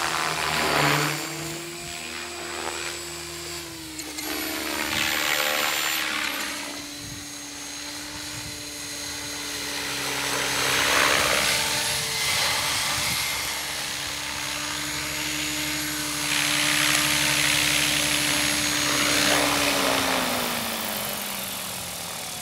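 Electric RC helicopter (Gaui Hurricane 550 with a Scorpion 4020 brushless motor) flying, with a steady whine from the motor and drive and whooshing rotor blades that swell louder several times as it passes and manoeuvres. Near the end the whine falls in pitch as the rotor spools down after landing.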